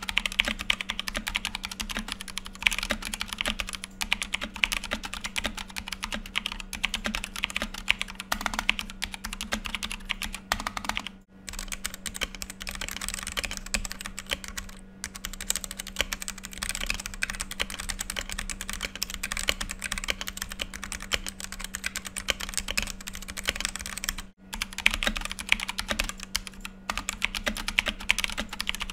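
Fast typing on a Dareu EK861 60% mechanical keyboard with Kailh Red linear switches: a dense, continuous clatter of keystrokes that breaks off briefly twice.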